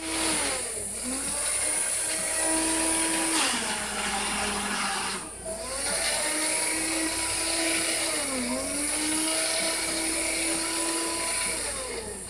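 Hand-held immersion blender running in a tub of batter. The motor hum drops and climbs back in pitch several times as the blade works through the mix, with a brief break about five seconds in.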